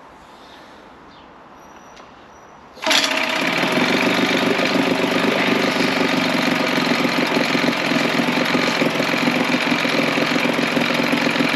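Old two-stroke Mercury outboard motor, freshly fitted with a new water pump, comes in abruptly about three seconds in and runs steadily at idle.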